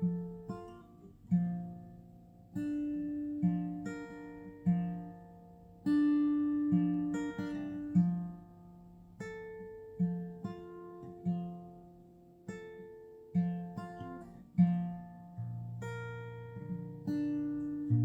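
Slow acoustic guitar music: plucked notes and soft chords, each left to ring and fade before the next.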